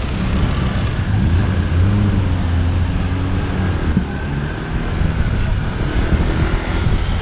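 City road traffic heard from a bicycle: a steady low rumble of vehicle engines, with one engine's note rising and falling in the first few seconds.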